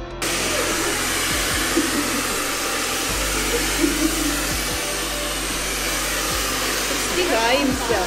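Handheld hair dryer blowing steadily, a continuous rush of air and motor noise as hair is blow-dried, cutting in abruptly right at the start. A brief voice is heard over it near the end.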